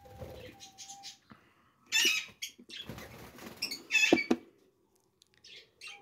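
Budgerigar chicks inside a metal nest box giving shrill screaming calls in short bursts, the loudest about two and four seconds in, along with clicks from the box's metal door being handled.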